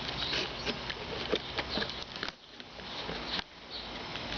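A box being opened by hand: rustling and crinkling of cardboard and packaging, with scattered small clicks and scrapes and a short lull partway through.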